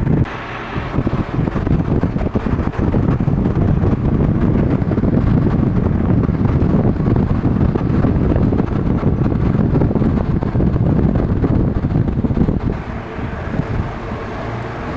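Steady rush of air buffeting the microphone, heaviest in the low end, with a faint steady hum above it. It eases noticeably about three quarters of the way through, leaving a thin steady tone.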